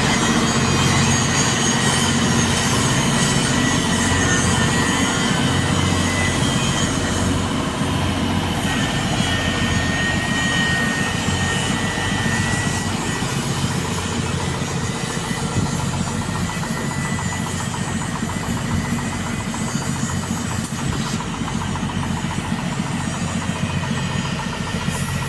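A heavy engine running steadily at idle, a constant low hum with no change in speed.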